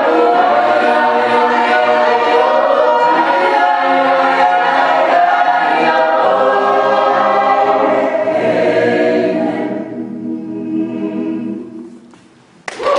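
Mixed a cappella choir singing unaccompanied in close harmony, the song dying away about ten to twelve seconds in. Right at the end, applause and cheers break out suddenly.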